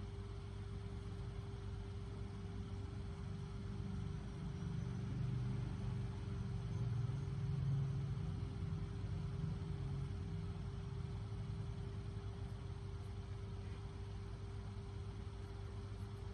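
Low, steady mechanical rumble like a running engine, with a steady hum over it, growing louder for a few seconds in the middle and then settling back.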